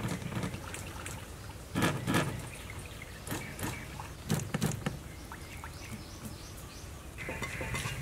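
Cut pumpkin and carrot pieces being rinsed by hand in a bowl of water, with splashing and dripping and soft knocks as the pieces are dropped into a plastic basket. About seven seconds in, a steady hiss of water boiling in a pot takes over.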